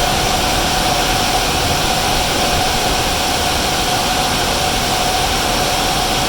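Steady roar of the cooling fans on a hall full of Bitcoin ASIC mining machines running flat out, loud and unbroken, with a constant whine through it.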